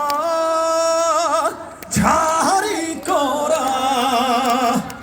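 A man singing live in trot style, holding two long notes with heavy, even vibrato, with a short break between them.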